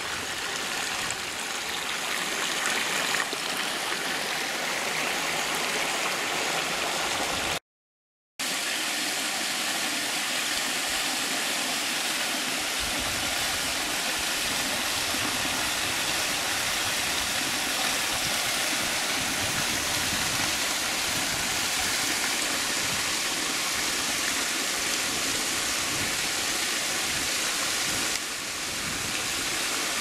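Steady rush of flowing water from a waterfall and stream, cut to silence for a moment about eight seconds in. A deeper rumble of falling water joins from about twelve seconds on.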